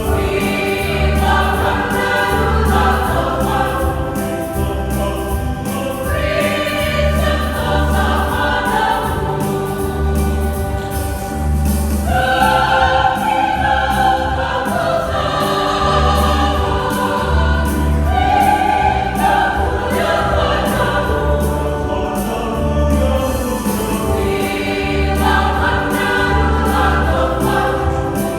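Church choir singing a gospel hymn in parts, over a steady, regular low bass pulse.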